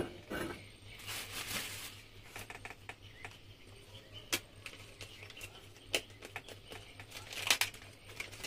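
Outboard gearbox parts handled on a wooden floor: scattered light clicks and knocks, with two brief scuffing sounds, about a second in and again near the end.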